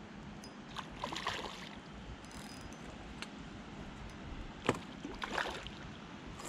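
A hooked trout splashing at the surface as it fights, in two short bursts, about a second in and about five seconds in, over a steady low background rumble.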